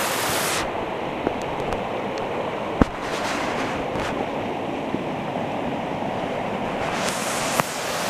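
Steady rushing of a waterfall, duller from about a second in until near the end, with a few sharp clicks.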